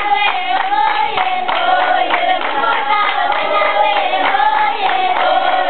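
A group of children singing together in unison over steady rhythmic hand-clapping; the voices come in right at the start on top of claps that were already going.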